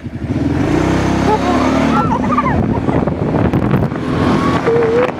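Kawasaki Prairie 700 ATV engine running hard under load, with wind buffeting the microphone.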